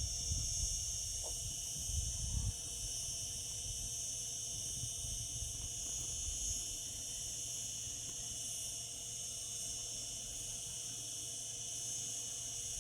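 Cicadas singing in a steady, unbroken high-pitched drone. A low rumble sits under it for the first two and a half seconds, then drops away.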